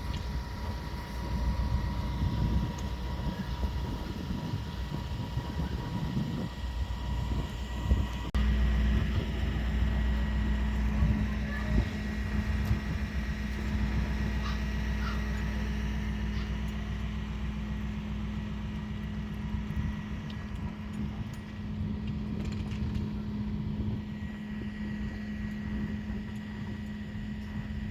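Motor vehicle running, a steady low rumble with a constant hum over it, and a single knock about eight seconds in.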